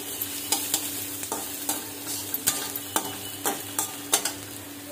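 Metal spatula scraping and clicking against a metal kadai, about twice a second, as chopped onions are stirred. Underneath is a steady sizzle of the onions frying in oil.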